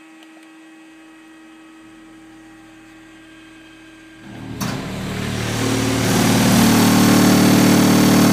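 Sixteen car subwoofers driven with a 38 Hz test tone at about 750 watts for a power test. The tone comes in about four seconds in, builds for about two seconds and then holds steady and very loud, heard as a harsh, distorted buzz. Before it there is only a faint steady hum.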